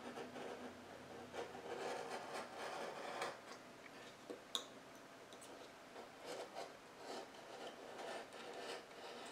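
Faint scraping of an X-Acto craft knife blade drawn along the edge of a wood panel in repeated short strokes, cutting through watercolor paper and dried gloss medium, with one sharp click about four and a half seconds in.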